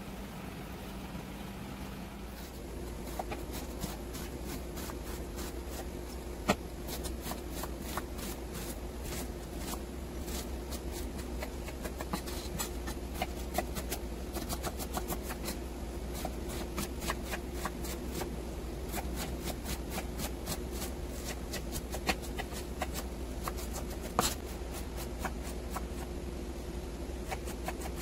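Kitchen knife chopping onion and ginger on a thick wooden cutting board: quick, uneven taps of the blade striking the wood, starting a couple of seconds in, over a steady low hum.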